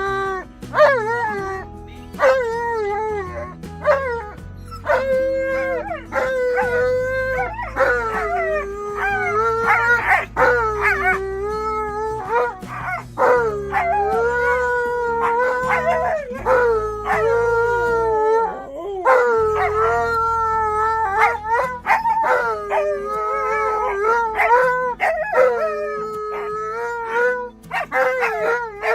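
A dog howling and making long, wavering 'woo' calls, one after another, over background music.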